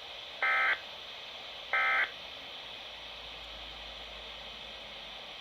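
Emergency Alert System (SAME) digital data bursts: two short, equal, buzzy warbling tone bursts a little over a second apart, the last of a set of three, which is the pattern of the end-of-message code. After them only a steady radio hiss.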